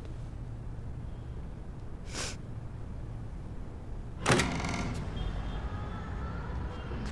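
A steady low hum with a short whoosh about two seconds in, then a single sharp, loud bang a little after four seconds, followed by faint lingering ringing tones.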